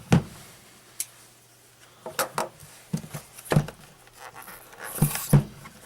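A cardboard package being handled and opened by hand: scattered knocks, taps and short rustles, with a cluster of knocks and a brief scraping rustle near the end.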